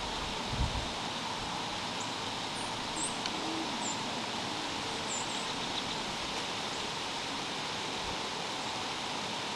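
Steady outdoor hiss of woods ambience, with a few faint, short, high bird chirps scattered through the middle and one low bump near the start.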